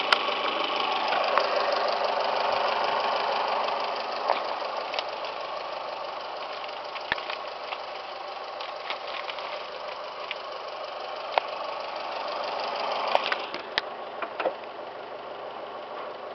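The 2012 Fiat 500's 1.4-litre single-overhead-cam MultiAir four-cylinder engine idling steadily with the hood open. The sound grows quieter about four seconds in, and light clicks are scattered through it.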